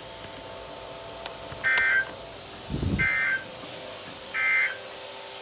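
Emergency Alert System end-of-message signal: three short bursts of SAME digital data tones, a little over a second apart, marking the end of the severe thunderstorm warning. A low thump comes just before the second burst, over a faint steady hum.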